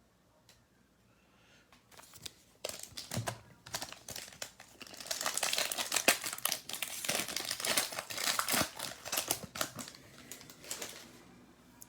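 Wrapper of a pack of NBA Hoops trading cards being torn open and crinkled by hand, starting a couple of seconds in and loudest in the middle.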